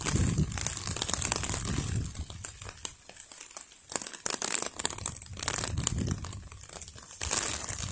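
Irregular rustling and crackling, with a lull about three seconds in.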